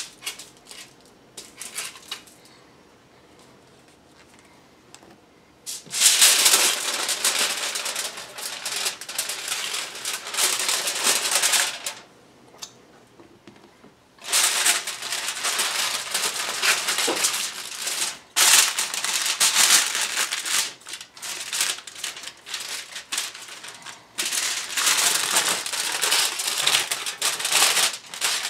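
Aluminium foil crinkling and rustling as it is folded and pressed tight around a rack of pork ribs. The crinkling starts a few seconds in and goes in long stretches, with a short pause about halfway.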